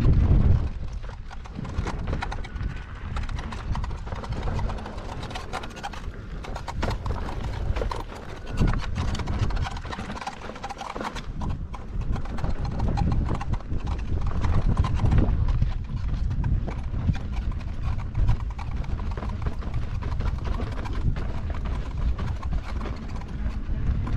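KingSong S22 electric unicycle riding down a dirt mountain-bike trail: an uneven run of knocks and rattles from the tyre and suspension going over the ground, over a heavy low rumble.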